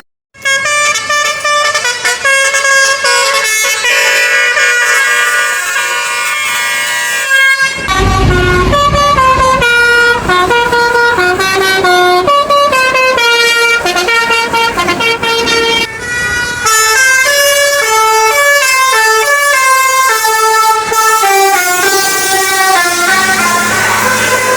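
Basuri telolet bus horn, a multi-tone musical horn, playing a fast melody of stepped notes. It begins after a brief dropout at the start, and a low rumble joins for about two seconds around eight seconds in.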